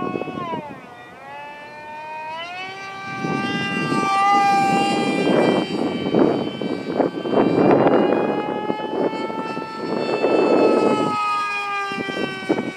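A Turnigy 2836 brushless motor (3700 kV, on 3S) spins the propeller of a small electric RC plane in flight with a high, siren-like whine. The pitch dips about a second in, climbs back and then holds fairly steady. Loud rushing noise swells in three times along the way.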